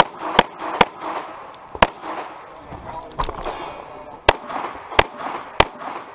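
Pistol shots from a Walther P99QA during a timed IDPA stage: three quick shots, another about a second later, then after a pause of about two and a half seconds three more spaced about two-thirds of a second apart, each followed by a short echo.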